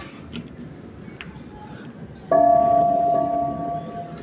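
A church bell struck once about two seconds in, then ringing on with a slowly fading tone.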